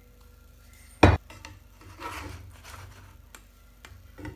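A spatula knocking sharply once against a nonstick frying pan about a second in, then scraping and clicking as it is worked under a pizza to lift it out.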